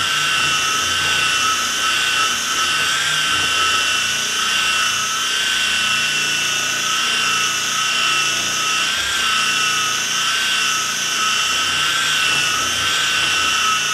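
Cordless drill spinning a rotary steel brush along a ski base, scrubbing off hard graphite surface wax. A steady motor whine with a slight wobble sits over a scratchy hiss, and it cuts off at the end.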